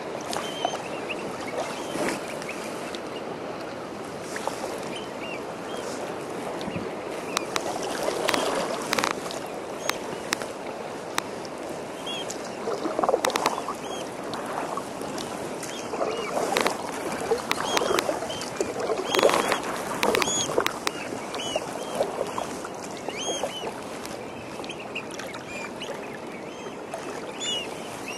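Kayak paddle splashing through choppy water, with louder strokes in the middle stretch. A flock of birds gives many short, high calls from about twelve seconds in until near the end.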